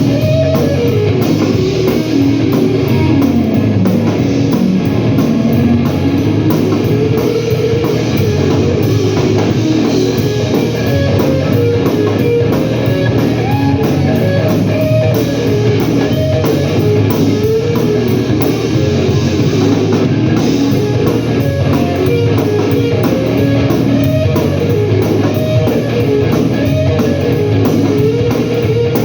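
Live blues-rock band playing an instrumental passage: a lead guitar line with notes gliding up and down over a steady drum kit.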